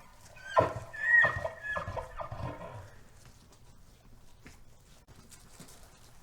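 A series of about five short animal calls, each falling in pitch, in the first three seconds, then only faint sound.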